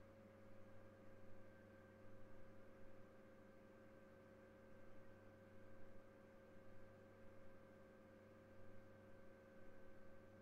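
Near silence: a faint, steady electrical hum made of a few unchanging tones.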